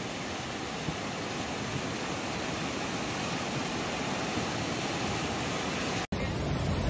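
Steady, even rushing noise with no tone in it, slowly growing a little louder. About six seconds in it cuts out for an instant and comes back with more low rumble.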